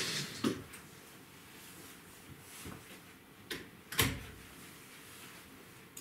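A few short, sharp knocks and clicks: one about half a second in, then two close together around three and a half and four seconds in, the last the loudest.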